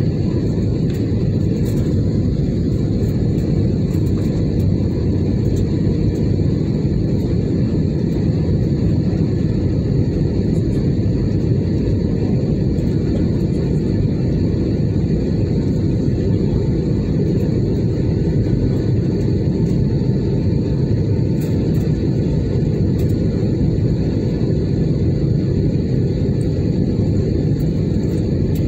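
Steady rumble of airflow and turbofan engines heard inside the cabin of an Airbus A320-family airliner on descent, with a faint, steady high whine above it.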